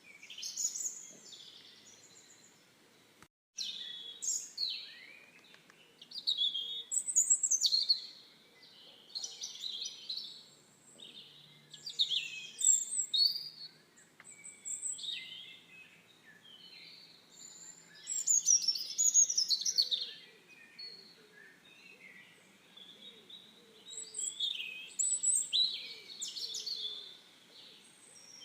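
Songbirds singing: phrases of quick chirps and whistles repeating every few seconds, with a brief gap about three seconds in.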